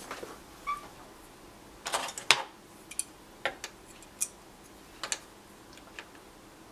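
Scattered light clicks and taps of a bent aluminum wire and a pair of pliers being handled, with a cluster of louder clicks about two seconds in.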